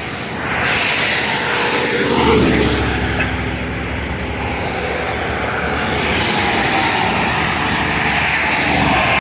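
Busy highway traffic rushing past close by, a steady loud rush of tyres and engines, swelling as a vehicle passes about two seconds in.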